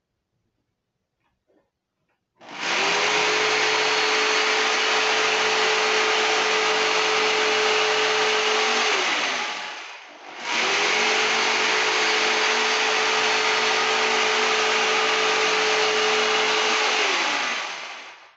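Electric jigsaw running in two spells of about seven seconds each, with a short pause between, its blade sawing through a hard-skinned zucchini. The motor comes up to a steady pitch at the start of each spell and winds down at the end.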